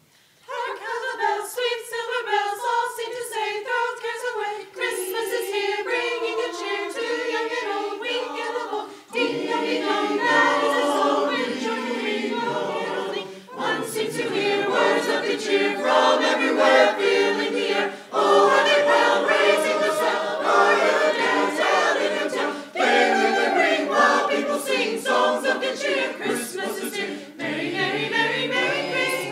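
Mixed church choir of men and women singing together, coming in about half a second in, phrase after phrase with short breaks between.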